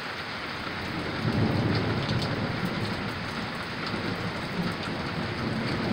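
Heavy rain falling steadily, with a low rumble of thunder rolling in about a second in and continuing.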